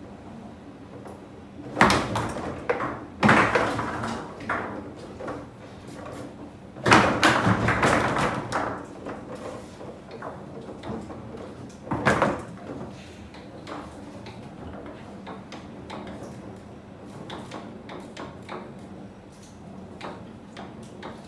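Foosball table in play: a few loud, sharp knocks of the ball and rods against the table, about two, three, seven and twelve seconds in, with lighter clicks and taps between.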